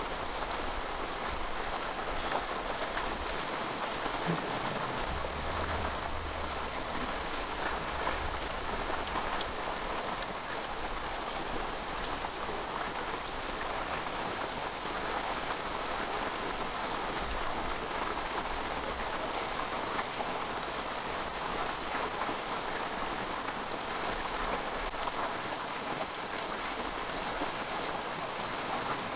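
Steady rain falling, an even hiss throughout, with a brief low rumble about five to seven seconds in.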